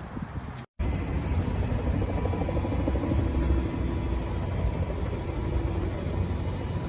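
Steady, loud, low rumbling noise that cuts in abruptly after a moment of silence, with faint steady tones over it.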